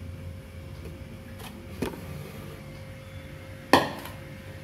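Two knocks of metal cookware on a gas stove, a faint one about two seconds in and a sharp, loud one near the end that rings briefly, over a steady low hum.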